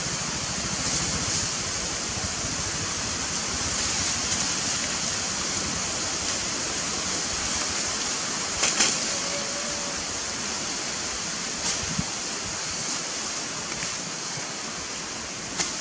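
Steady hissing background noise, strongest high up, with a few faint clicks.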